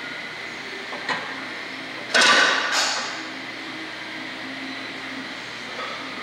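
Iron weight plate clanking against the steel of a leg press: a light knock about a second in, then a sharp loud clank about two seconds in, ringing briefly, with a second clank just after it. A steady background hum runs underneath.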